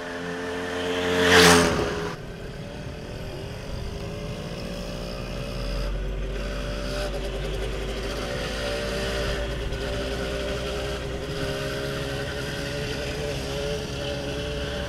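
Riga-13 moped's single-cylinder two-stroke engine running steadily under way. About a second and a half in, a loud whoosh of something passing close swells and fades.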